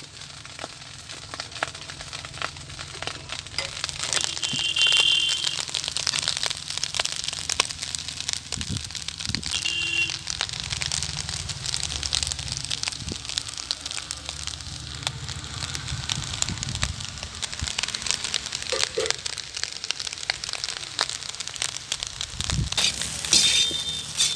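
Chicken fried rice being stir-fried in a hot pan: the rice and vegetables sizzle and crackle steadily while they are stirred, with dense clicking and scraping from the stirring.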